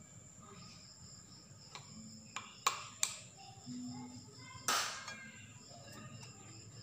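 Five or so light clicks and knocks, scattered and irregular, the loudest about two-thirds of the way in. A faint, steady high-pitched whine runs underneath.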